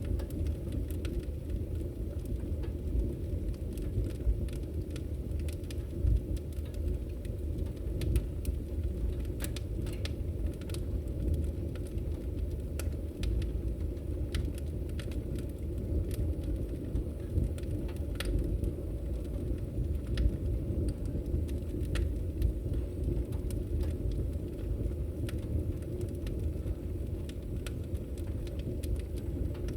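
Firewood burning in a fireplace: a steady low rumble of flame with frequent irregular crackles and pops, a few of them sharper and louder than the rest.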